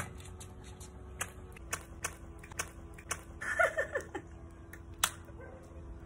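Scattered sharp clicks and taps, with a girl's short squeal, falling in pitch, about three and a half seconds in.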